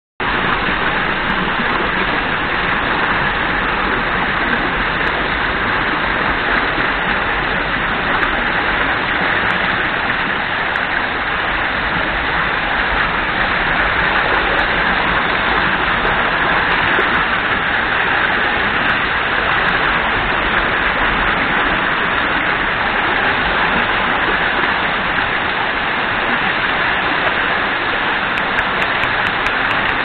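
Water of a small cascade pouring over rocks in a forest stream: a steady rush with no letup.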